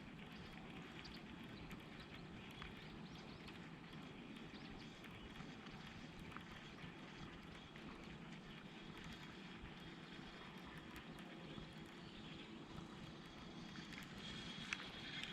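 Faint, steady outdoor background noise, growing a little louder near the end.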